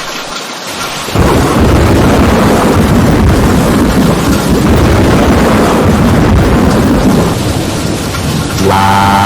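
Thunderstorm: steady rain, then about a second in a loud rumble of thunder that rolls on for about six seconds and eases off. Near the end, a steady pitched tone with a slowly rising pitch cuts in.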